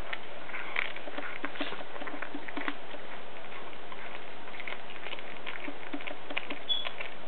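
Cat chewing on a whole raw rat: irregular small crunches and clicks of teeth on flesh and bone, over a steady hiss.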